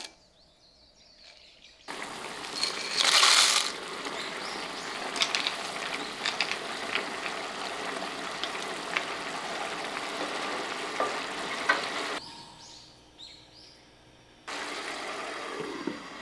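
Tomato sauce simmering in a frying pan while a wooden spoon stirs penne through it, with small scraping clicks. There is a louder rush about three seconds in as the dry penne goes into the sauce. The sound goes quieter with a few bubbling pops for a couple of seconds before the simmering comes back.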